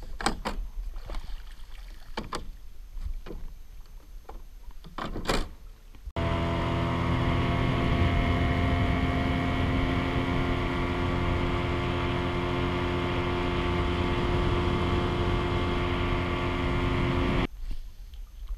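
A few knocks and clunks as the bow-mounted electric trolling motor is handled. Then an outboard motor, likely a Yamaha, runs at a steady pitch for about eleven seconds, starting and stopping abruptly.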